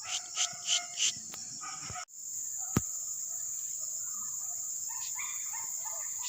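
Steady high-pitched chorus of crickets and other insects. About four short, loud calls sound in the first two seconds, then a single sharp click just before the three-second mark.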